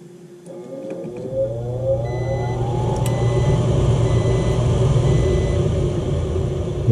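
Gas furnace motor starting about half a second in: its whine rises in pitch for about a second and a half, then it runs steadily with a low hum, growing louder as it comes up to speed.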